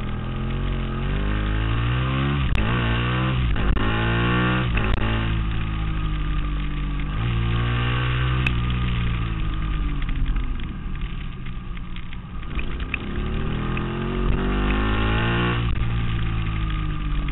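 Ducati Monster S4Rs's V-twin engine, heard from on board, accelerating hard up through the gears, its pitch climbing and dropping back at each upshift. It eases off to a lower, quieter note about ten seconds in, then pulls up through the revs again near the end.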